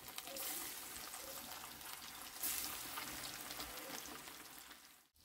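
Floured fish fillets frying in hot oil in a pan, a faint steady sizzle.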